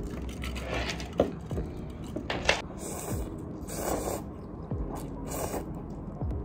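Noodles being slurped from a bowl, in three short slurps, with metal chopsticks clicking against the bowl.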